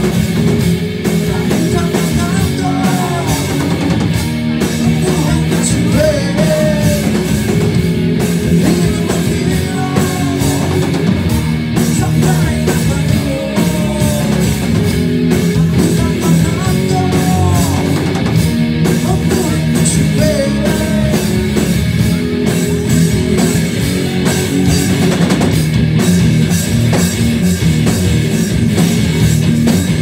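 Live rock band playing loud: electric guitars, bass guitar and drum kit, with bending lead lines over a steady full-band sound.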